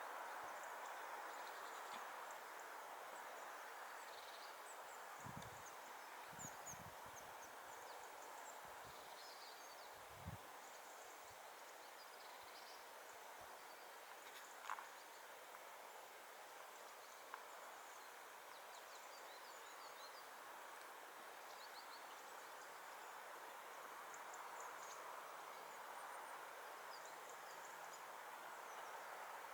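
Quiet outdoor ambience: a steady background rush, with faint, short, high-pitched chirps of small birds scattered through it. There are a few soft low thumps in the first half and one sharp click about halfway through.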